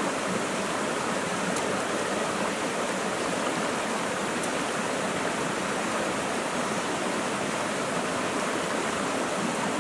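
Shallow stream flowing over rocks: a steady, even sound of running water.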